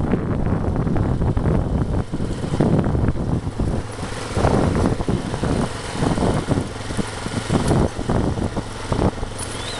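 Motor vehicle engine running while driving over a rough, rutted dirt road, with irregular jolts and rattles from the bumps.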